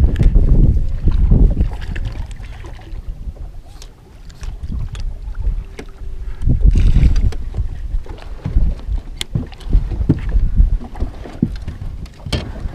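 Wind buffeting the microphone aboard a small fishing boat, a low rumble that gusts up and dies down, with scattered sharp knocks and clicks.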